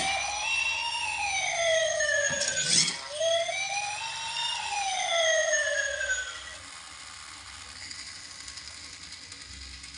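Toy police car's electronic wail siren sounding two slow rising-and-falling sweeps, then stopping about six and a half seconds in, with a knock about three seconds in.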